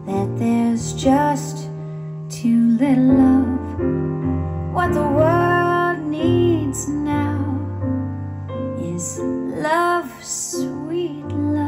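Recorded music played over Tannoy Gold dual-concentric loudspeakers: a woman singing a melody with vibrato on held notes, over sustained piano or keyboard chords and a bass line.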